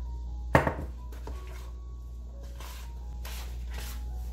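A single sharp knock of a glass dish against the rim of a mixing bowl as flour is tipped in, then a spatula scraping and stirring the flour into thick apple waffle batter in repeated soft strokes.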